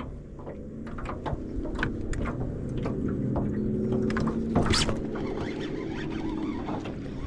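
Fishing reel being cranked to retrieve a crankbait: a steady whirring hum with many small clicks, and one louder sharp noise about four and a half seconds in.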